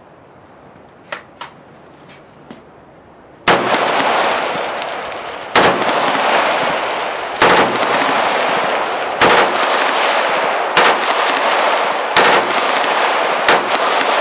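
Full-auto 5.56 mm AR-pattern rifle fired in seven bursts, one starting about every one and a half to two seconds. A few faint clicks come before the first burst.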